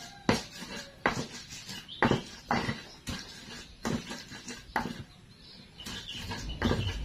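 Pestle pounding and grinding chilies and onions in a cobek (mortar): irregular knocks and scrapes, about one or two a second.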